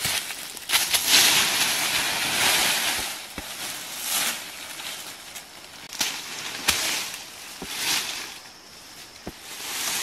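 Dry leaf litter crunching and rustling under a person's feet and body as she walks down a slope and crouches. The noise is loudest in the first few seconds, then comes as several shorter rustles with a few sharp snaps.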